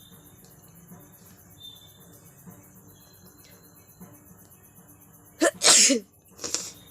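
A person sneezing once, loudly, about five and a half seconds in, with a short voiced catch just before the burst. A shorter breathy burst follows a moment later. Faint high chirps run under it.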